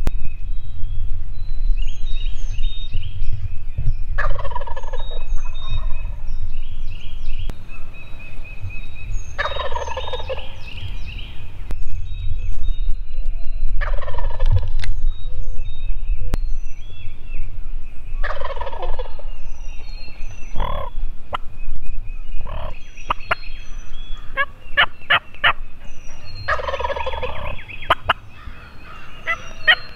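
Wild turkey gobbler (longbeard) gobbling from its roost: five loud rattling gobbles, several seconds apart. Songbirds chirp in the background over a steady low rumble.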